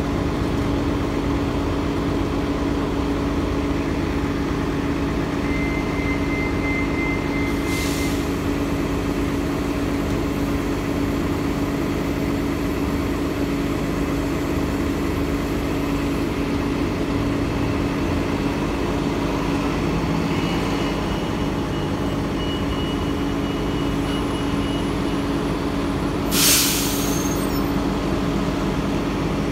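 Transit buses idling with a steady low hum, with two bursts of compressed-air hiss from the air brakes, one about eight seconds in and a louder one near the end. A thin high beep sounds for a couple of seconds just before the first hiss.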